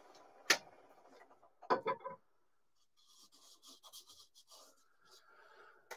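A sharp click, then a brief clatter as a wooden-handled turning gouge is laid down on the lathe's metal bed. After that comes a couple of seconds of light scratchy rubbing as hands go over the turned wooden bowl.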